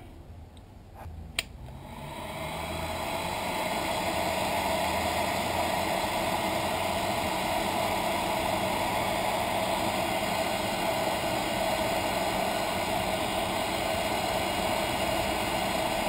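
Heat gun switched on with a click, its fan spinning up over a couple of seconds into a steady blowing rush while it shrinks heat-shrink tubing over freshly soldered connectors.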